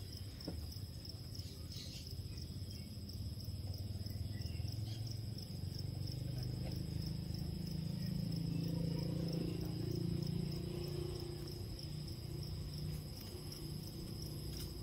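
An insect trilling steadily at a high pitch, with a low hum swelling up in the middle.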